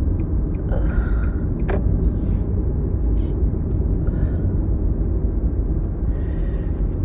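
Steady road rumble inside a moving car, with a congested person sniffing and breathing hard through a blocked nose in several short bursts.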